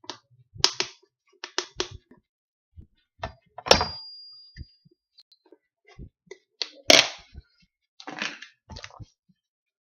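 Table knife scraping and tapping while spreading marshmallow fluff on a graham cracker: a string of short scrapes and clicks, with two sharp knocks, about four and seven seconds in. The first leaves a brief high ringing tone.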